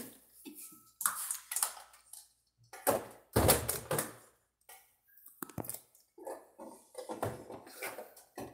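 Irregular knocks and clatter of kitchen things being handled, with a heavier thump about three and a half seconds in.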